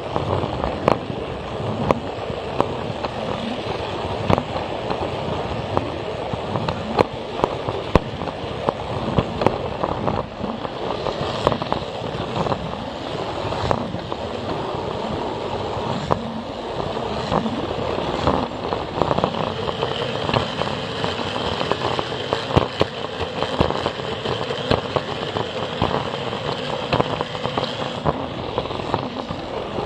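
Plarail plastic toy train running along its track, the small motor and gears whirring steadily and the wheels clicking irregularly over the track joints. A thin high whine holds for several seconds past the middle.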